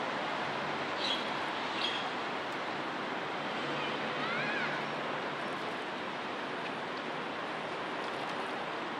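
Steady outdoor ambient rush, like distant water or wind. Two short high chirps come about a second in and again just before two seconds, and a pair of brief rising-and-falling squeaks come near the middle.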